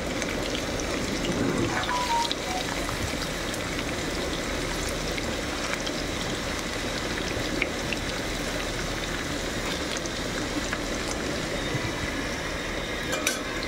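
Paneer cubes deep-frying in hot oil in a black iron pan: a steady, even sizzle, with a few light clicks of a metal fork against the pan.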